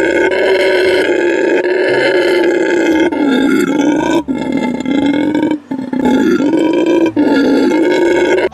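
An animal's loud, drawn-out roaring calls, several in a row, with short breaks between them in the second half.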